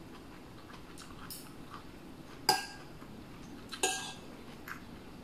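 Metal spoon clinking against the serving dishes as food is scooped: two sharp, ringing clinks, one about halfway through and another about a second later, with a few lighter taps around them.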